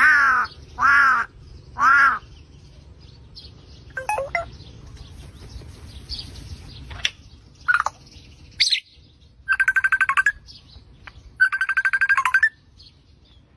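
African grey parrot giving three loud rising-and-falling whistles, then a few short calls and a sharp rising chirp, before mimicking a mobile phone's incoming-call ringtone: two bursts of rapid trilling at one steady pitch, about a second each, near the end.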